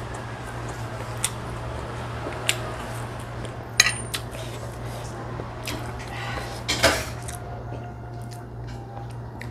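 Metal cutlery clinking against dishes in a kitchen: about four sharp clinks, the one near the middle ringing briefly. A steady low hum runs underneath.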